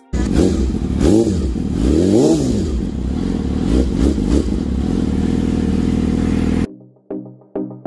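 2020 Yamaha YZF-R6's inline-four engine running and blipped on the throttle twice, about a second in and again around two seconds in, revs rising and falling quickly each time, then settling to a steady idle. The sound cuts off abruptly near the end and music follows.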